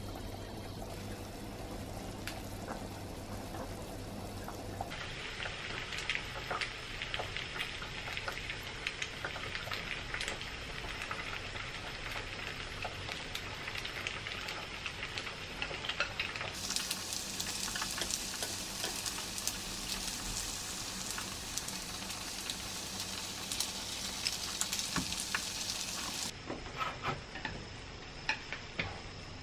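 Egg-dipped gimbap slices sizzling and crackling as they fry in oil in a pan, louder for a stretch partway through. It opens with a steady low hum over a simmering pot of oden, and near the end come a few light clicks of a plate being handled.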